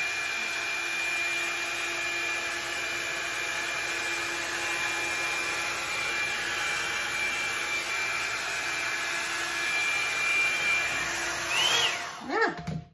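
Bed Head Blow Out Freak hot-air volume brush running on its high setting against the hair: a steady blowing whir with a steady high whine over it. Near the end it is switched off and the motor winds down with a short falling whine.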